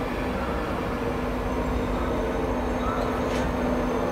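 InterCity 225 Mark 4 passenger coaches rolling past along the platform: a steady rumble of wheels on rail with a low, even hum.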